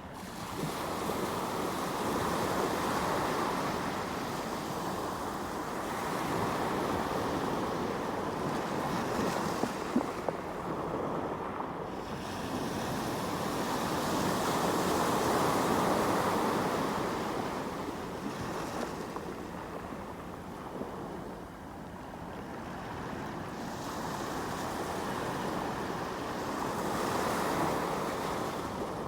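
Ocean waves surging, the wash swelling and fading in slow rises every several seconds, with a couple of brief sharp clicks about ten seconds in.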